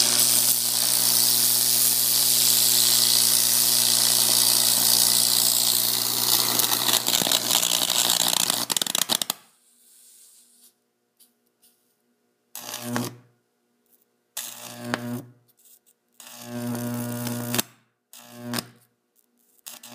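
Microwave oven transformer high-voltage arc burning into an apple, a loud continuous buzzing crackle for about nine seconds that cuts off suddenly. Then come five short buzzing bursts of about a second or less as the arc is struck again.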